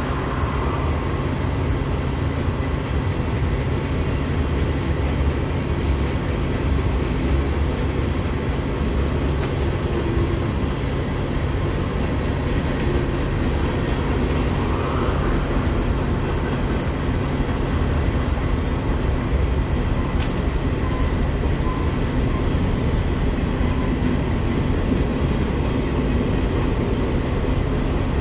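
A train running, with a steady low rumble and hum at an even level.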